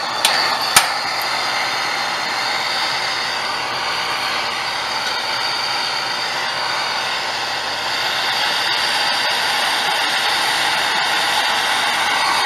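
Gas torch flame hissing steadily while it heats a copper refrigerant line joint at an AC condensing unit's service valve for brazing. A couple of sharp clicks come right at the start.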